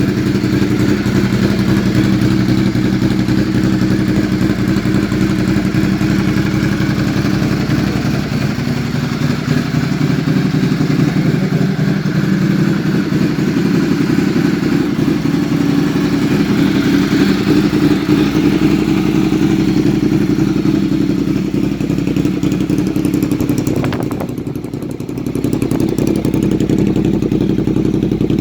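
Ducati Monster 1200R's 1198 cc L-twin engine running at a steady, unhurried idle, with a short drop in level about three-quarters of the way through before it settles back.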